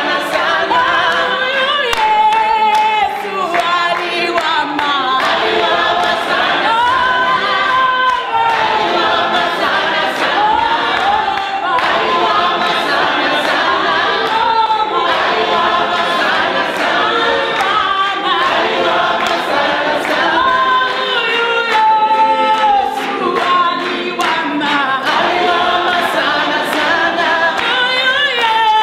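A group of voices singing a worship song together, several parts at once, loud and continuous.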